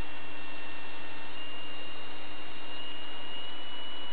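High-pitched whine of a Joule-Thief oscillator wound on a small Rodin-coil ferrite toroid, a steady single tone that steps slightly up in pitch about a second and a half in and again near three seconds, with a fainter low hum beneath. The pitch tracks the oscillation frequency being adjusted.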